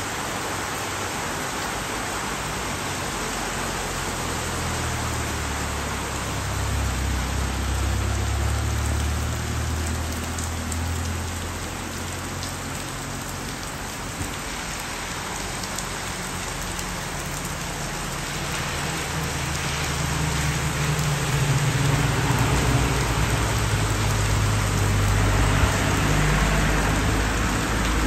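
Steady rain pouring down on leaves and a corrugated metal roof, an even hiss of countless drops. A low rumble swells under it about a quarter of the way in and again over the last third, as the rain grows louder.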